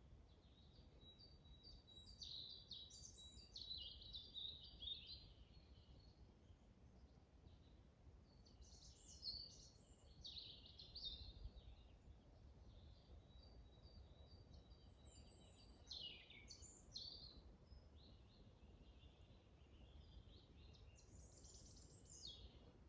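Faint forest birdsong: four bursts of high, rapid chirping phrases a few seconds apart, over a steady low wind rumble.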